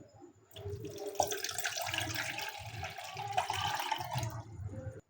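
Water running steadily, starting about half a second in and cutting off abruptly near the end.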